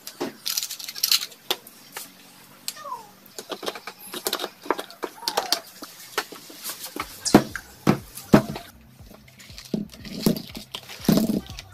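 Hands working on engine parts: irregular metal clicks, taps and clatter of parts and tools being handled and fitted.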